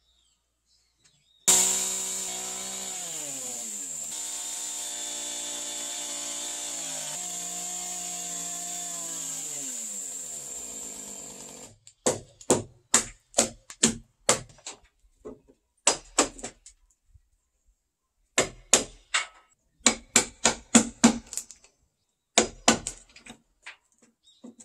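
Chainsaw running for about ten seconds, its pitch dropping and levelling as it cuts into a timber beam, then stopping abruptly. Then a hammer strikes the timber in quick runs of several blows each.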